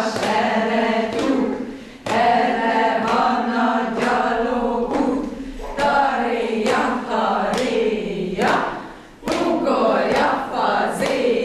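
A group of women singing a Hungarian children's song together in unison, with a brief pause between phrases about two seconds in and again near the end.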